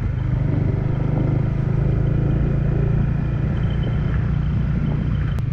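Motorcycle running steadily on the road, a constant low engine and road rumble.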